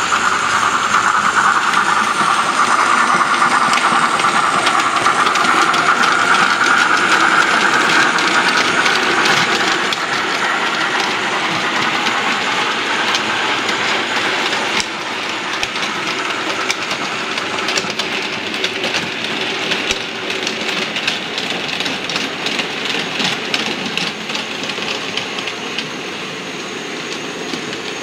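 Model railway trains running on the layout's track: a steady running whir with a whine that fades after about ten seconds, then a run of rapid clicking from wheels over the rail joints as the coaches pass.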